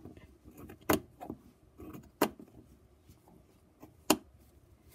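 Scissors cutting through felt: a few sharp, separate snips spaced about a second or more apart.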